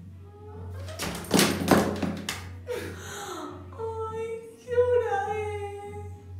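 A woman crying: a run of harsh, ragged sobbing breaths about a second in, then long wavering wails that slide in pitch, over quiet background music.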